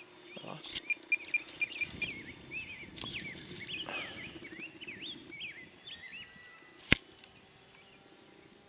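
A small bird chirping in quick rising and falling notes through the first few seconds, over a faint steady hum. A single sharp click about seven seconds in.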